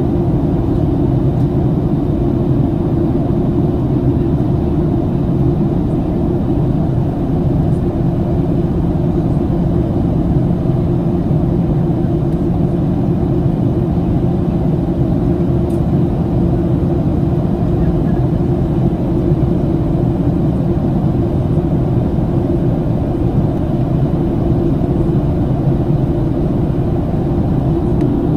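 Steady low rumble inside the cabin of a Boeing 737-700, even and unchanging throughout.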